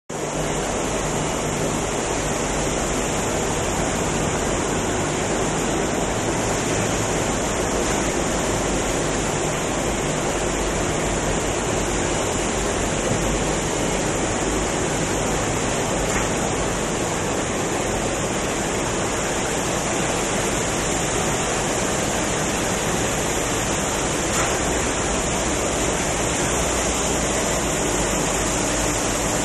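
Steady, dense noise from machinery on a nail-factory floor. It forms one even wash with a low hum underneath and no separate strokes standing out.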